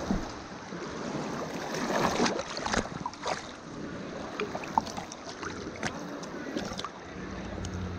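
River water splashing and lapping right at a camera held at the surface of a shallow, fast-flowing river, with many small splashes and drips over the running water. The splashing is loudest about two seconds in.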